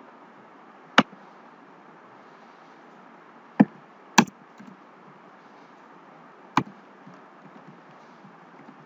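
Four sharp, isolated clicks from working a computer mouse and keyboard while editing code: one about a second in, two close together around the middle, and one more a little later, over a faint steady hiss.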